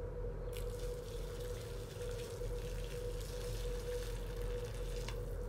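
Water poured in a steady stream into a glass bowl of dry instant noodle blocks, starting about half a second in and stopping shortly before the end, with a steady low hum underneath.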